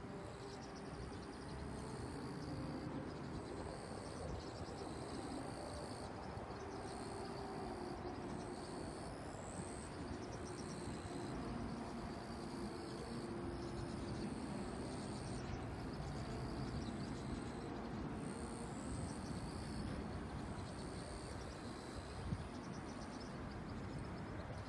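Steady outdoor rumble of distant engine noise, with short high chirps repeating throughout.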